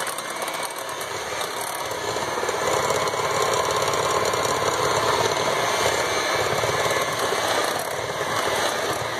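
Electric hand mixer running steadily, its beaters working through thick banana bread batter in a glass bowl as flour is blended in.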